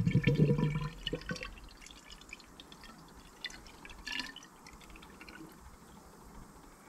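Coolant being poured from a jug into the engine's cooling system: a loud pour for about the first second, then it falls away to faint drips and a couple of light ticks.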